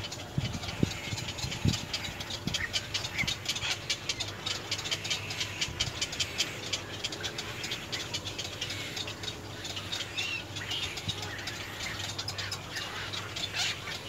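Dense, rapid ticking and chattering bird calls, with a few short higher calls standing out. There are a few low thumps in the first two seconds.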